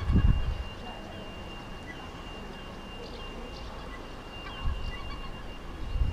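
A gull calling faintly now and then, with a brief low rumble at the start and a thin steady high tone underneath.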